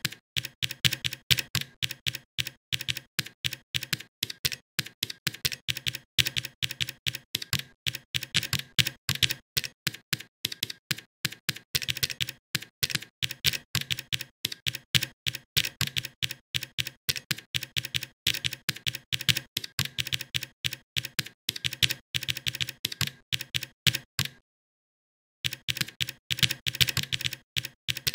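Typing on a computer keyboard: a fast, continuous stream of keystroke clicks, stopping for about a second near the end before resuming.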